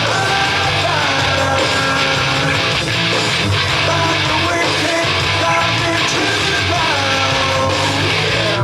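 Rock music with electric guitar, loud and steady, with sliding guitar notes.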